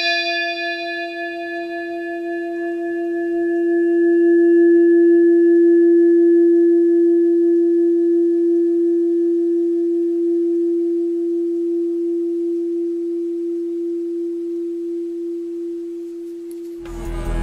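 A struck bell-like metal tone ringing on as one long steady note; its high overtones die away within a few seconds while the main note swells and then slowly fades. Music with a heavy low beat comes in just before the end.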